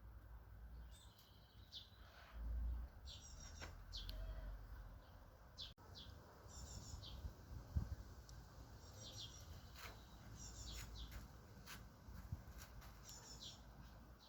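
Small songbirds chirping, with short high notes and quick trills repeated every second or so, over a faint low rumble.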